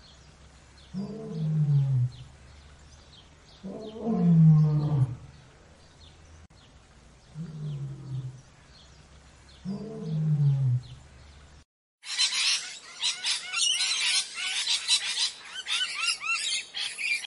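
A lion roaring: four low calls a few seconds apart, each falling in pitch. About twelve seconds in it changes to a parrot's rapid, shrill squawks and whistles.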